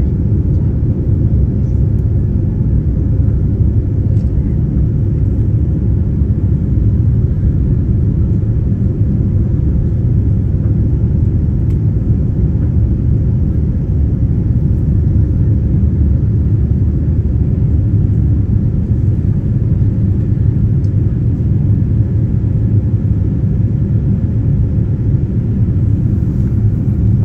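Steady low rumble of a Boeing 787's engines and rushing air heard inside the passenger cabin during the climb after takeoff.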